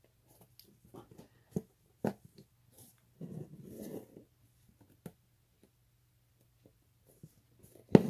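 Hand embroidery on fabric held taut in a hoop: scattered sharp taps and clicks as the needle pokes through, and about three seconds in a rustle lasting about a second as the embroidery floss is drawn through the fabric.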